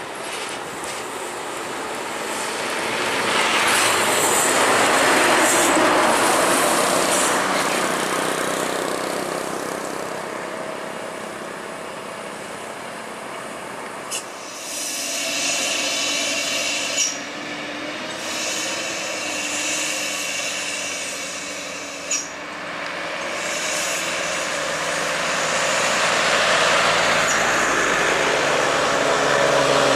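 Loaded diesel trucks passing close by one after another: engine and tyre noise swells and fades as each goes by, with a few short sharp clicks midway. Near the end a Mitsubishi Fuso truck's diesel engine pulls hard, pouring black smoke, and is loudest as it passes.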